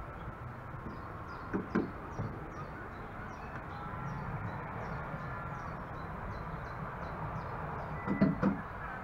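Ride boat drifting quietly along a narrow canal, with small birds chirping in quick, short, high notes. Knocks come in two pairs, about a second and a half in and again near the end, where they are loudest.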